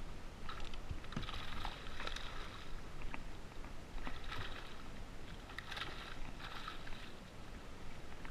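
Water splashing around a kayak in two spells, about a second in and again midway, with scattered light clicks.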